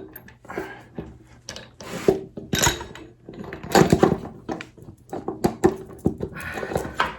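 Irregular metal clinks, knocks and scrapes of parts being handled as a spacer is fitted onto a motorcycle's front wheel axle, with the loudest scraping rattles about two and four seconds in.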